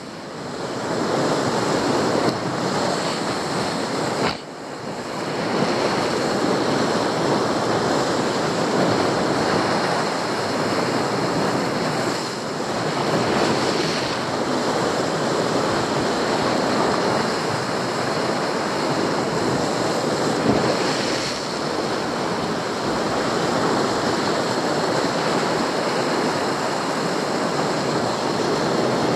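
Sea surf washing and breaking against a rocky shore, a steady rushing wash, with wind buffeting the microphone.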